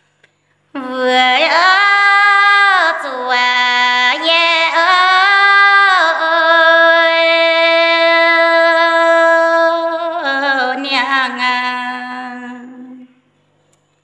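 A woman singing a Red Dao (Dao Đỏ) folk song unaccompanied, in long held notes joined by slow glides up and down. She comes in about a second in, holds one long steady note through the middle, and her last note fades out about a second before the end.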